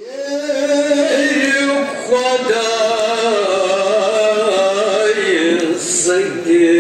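Male voices chanting a Kashmiri marsiya, a mourning elegy, in long drawn-out lines that waver in pitch.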